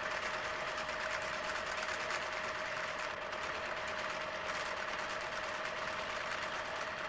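Electric sewing machine running steadily at speed while stitching decorative zigzag stitches. A steady motor whine sits under a fast, even clatter of the needle.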